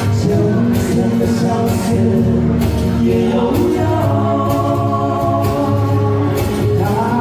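Live band playing a slow pop song, a singer holding long notes with a couple of upward slides over bass and regular drum beats.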